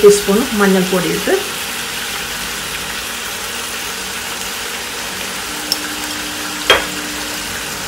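Chicken pieces and onions frying in coconut oil in a nonstick pan, giving a steady sizzle, with one sharp tap a little before the end.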